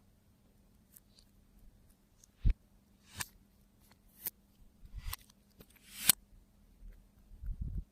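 Slime being pressed and squeezed by hand, giving a string of sharp pops and crackly squelches from trapped air, about six in all. The loudest comes a little past two seconds in, and another swells up and snaps off about six seconds in.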